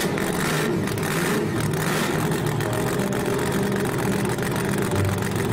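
Monster truck engine sound effect in a cartoon, running steadily with a low drone.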